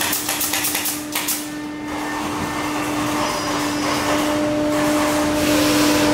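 Pneumatic stapler firing a rapid run of about ten staples into plywood in the first second. A steady machine hum follows under a rising hiss.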